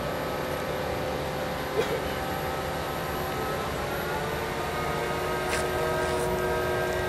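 Mobile crane's engine running steadily under load while it hoists a precast concrete slab, a constant hum with a few held whining tones, one of which drifts upward about four seconds in. A sharp click cuts through about two seconds in, with fainter clicks later.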